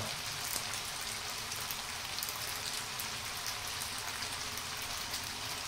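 Steady sizzling with fine crackling from hot olive oil in a frying pan, with freshly drained spaghetti and starchy cooking water in it.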